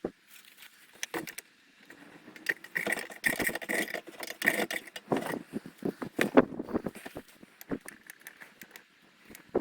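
Handling noise: a run of knocks, rattles and scrapes, busiest in the middle few seconds.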